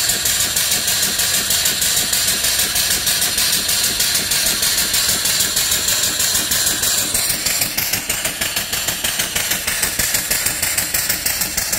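Single-cylinder vertical steam engine, 3-inch bore and 4-inch stroke, running at about 200 rpm on 35 psi of boiler steam: its exhaust chuffs in a fast, even rhythm over a steady hiss of escaping steam.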